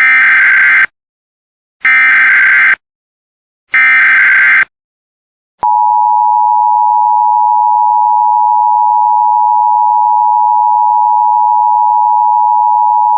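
Emergency Alert System header: three short bursts of SAME digital data tones, each under a second and about a second apart. Then, about halfway through, comes the steady EAS two-tone attention signal, held for about eight seconds. Together they mark the start of an emergency alert, here a tornado warning.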